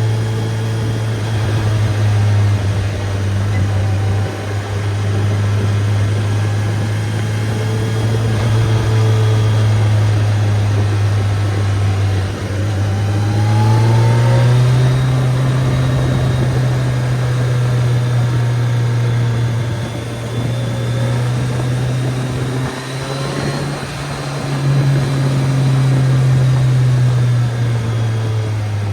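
BMW K1300S motorcycle's inline four-cylinder engine running at steady cruising revs. About halfway through, the pitch rises as it accelerates, holds a higher steady note, then eases off at the very end.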